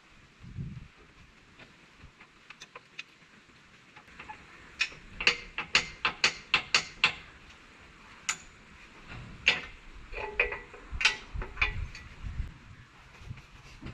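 A run of sharp clicks or knocks, about three to four a second for a couple of seconds, followed by a few more scattered ones and a low thump near the start.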